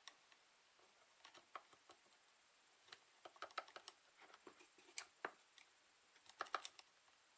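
Faint, scattered light clicks and taps of jumper-lead clips being touched to the terminals of a bench-tested starter motor, in small clusters. No motor spin follows: the starter does not respond, a sign that it is dead.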